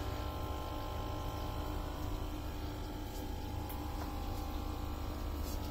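Steady hum of a hydroponic Dutch-bucket system's water pump, with water running through the system.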